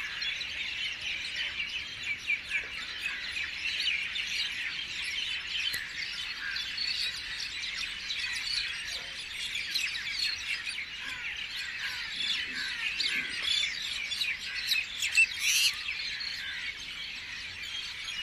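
A dense chorus of many small birds chirping and calling together, with a few louder calls about three-quarters of the way through.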